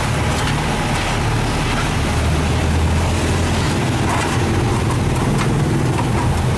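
A motor vehicle engine running steadily as a low rumble, growing louder for a couple of seconds in the middle.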